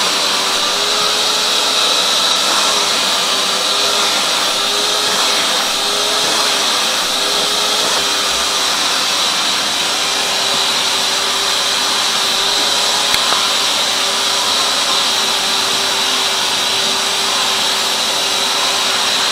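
Vacuum cleaner running steadily, a constant rushing noise with a motor whine that wavers slightly in pitch.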